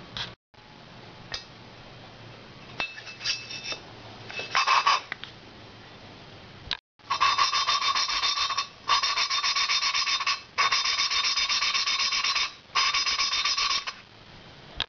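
Valve being hand-lapped into its seat in an Evo Sportster cylinder head: a lapping stick is spun back and forth, grinding the valve face against the seat through cutting compound with a gritty rasp. This comes in four long stretches from about seven seconds in, with brief pauses between them, after a few lighter scrapes and clicks.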